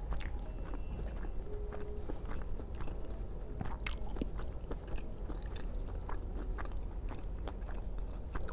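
Close-up chewing and wet mouth sounds of a person eating steamed vegetable momos, with scattered small smacks and clicks.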